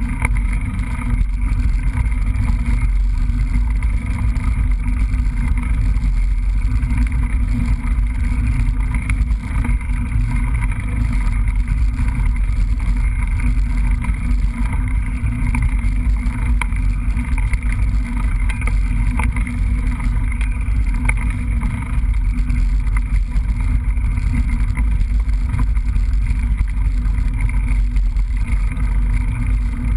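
Steady rumble of a mountain bike ride picked up by a GoPro: wind buffeting and trail vibration on the camera's microphone, mostly a deep rumble with faint rattles.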